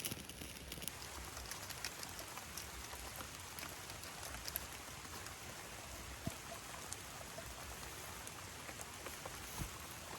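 Steady rain falling, an even hiss with many small drop ticks and a few sharper ticks scattered through.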